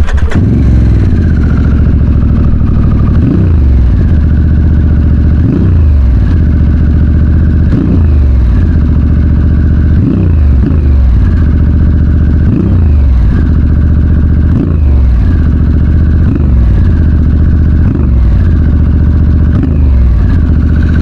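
Harley-Davidson Sportster S's Revolution Max 1250T V-twin running loud through MCJ custom exhaust pipes. It idles with short throttle blips, roughly one every one to two seconds, each a quick rise and fall in pitch.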